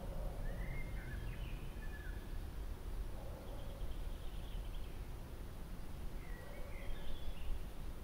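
Birds calling in three short bursts of chirps, one of them a brief trill, over a steady low background rumble.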